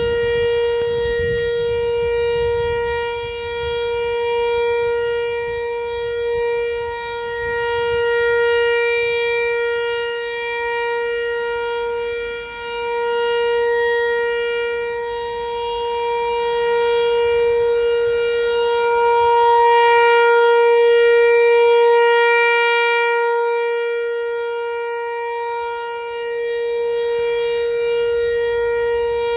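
Outdoor tornado warning siren sounding a steady, unbroken tone at a fixed pitch, its loudness swelling and fading every few seconds.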